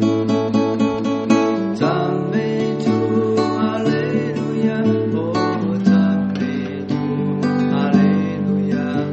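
Acoustic guitar playing a hymn tune: plucked and strummed chords with a moving bass line, the chords changing every second or two.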